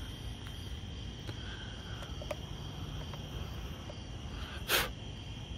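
Crickets chirping steadily over a low background rumble, with a short puff of noise about four and a half seconds in.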